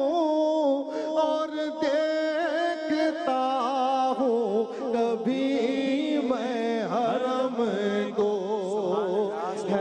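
A man singing an Urdu hamd (Islamic devotional song) into a microphone, holding long drawn-out notes with the pitch wavering and gliding through ornamented turns.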